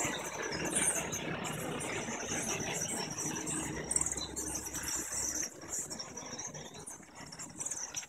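A small tour bus's engine running as it drives slowly past, dropping away about five and a half seconds in. A flock of small birds chirps high above it throughout.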